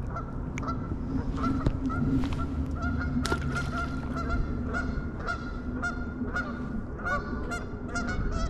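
Geese honking: many short, repeated honks overlapping, coming faster in the second half.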